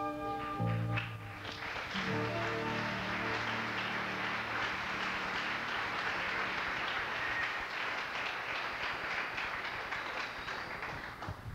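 Audience clapping for about ten seconds, dying away near the end, with the last low notes of the music under the first few seconds.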